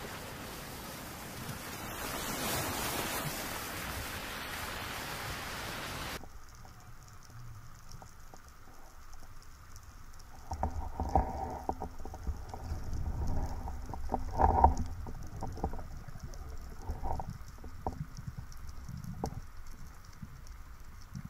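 A steady rushing hiss that cuts off abruptly about six seconds in. It gives way to underwater sound picked up by a diver's camera: faint scattered crackling, with louder irregular rumbles and knocks of movement through the water from about ten seconds in.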